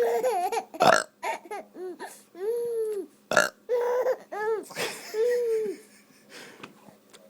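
Fake burps from an adult, made several times, alternating with a baby's short, high-pitched laughs.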